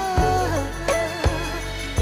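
Background music: a song with a wavering, held melody line over a steady beat.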